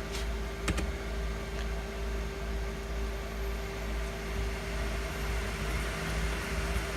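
Pentium 4 desktop PC running, its fan giving a steady hum with one constant tone. A few short clicks come in the first second.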